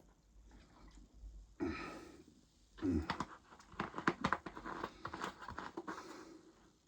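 A person gulping lemonade from a bottle. A breath out comes about a second and a half in, then a long string of gulps and small clicks.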